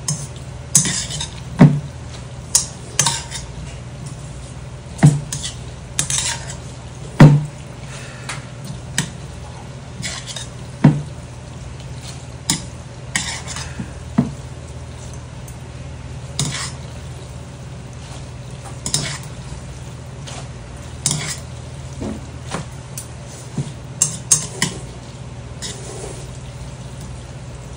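Metal chopsticks clinking and scraping against a large stainless steel bowl as jjajangmyeon noodles are tossed and mixed into the black bean sauce, in irregular clinks about once a second. A steady low hum runs underneath.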